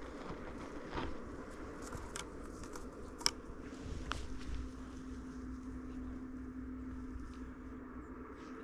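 Footsteps through dry prairie grass and brush: light crackling and rustling, with one sharp tick about three seconds in. A faint steady hum comes in about four seconds in and fades near the end.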